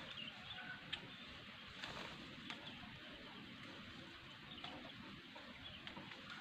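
Faint rustling of leaves and a few small sharp clicks and snaps as jamblang (Java plum) fruit is picked by hand among the branches, with a few faint short bird chirps.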